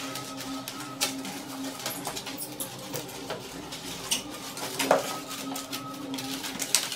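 Stretched painting canvases being handled and stacked: scattered knocks, taps and light clatter of wooden frames, the loudest knock about five seconds in, with a low hum that comes and goes.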